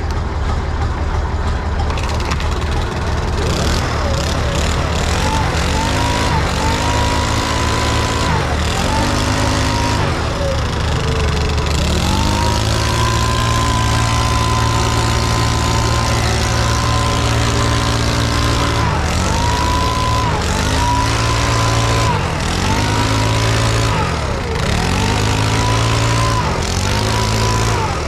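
Hand-held leaf blower being used to blow dust out of a combine harvester. Its pitch drops and rises again over and over as the throttle is let off and opened, with a steady full-throttle stretch in the middle. Under it runs the steady drone of the Bizon combine's Andoria SW 400 diesel engine.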